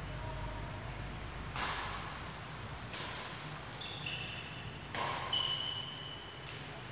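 Badminton rally: about five sharp racket hits on the shuttlecock in quick succession, several followed by a short, high, steady ringing tone.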